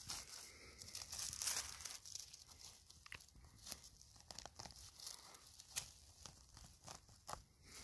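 Dry needle litter and small twigs crackling and rustling as a hand digs a porcini mushroom out of the forest floor, with many scattered sharp cracks.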